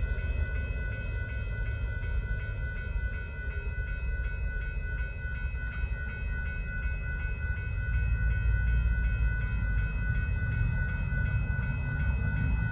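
Railroad grade-crossing warning bell ringing in a quick, even, repeating rhythm while the gates are down, over a low rumble.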